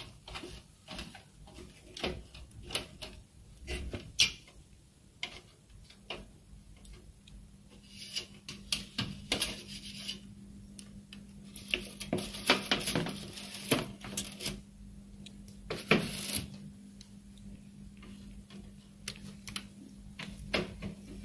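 Irregular small clicks and plastic-and-metal rattles of hands fitting the carriage timing belt back onto its toothed pulley inside an opened Epson LX dot matrix printer, with a busier stretch of clatter after the middle. A faint steady hum comes in about eight seconds in.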